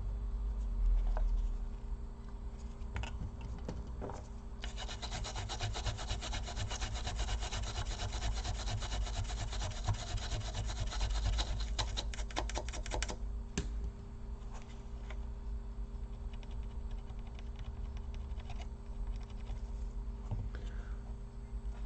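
Fast scrubbing at a corroded laptop memory slot with alcohol, cleaning off the corrosion. The strokes are dense and rapid from about five seconds in until about thirteen seconds, with fainter, scattered scrubbing before and after, over a low steady hum.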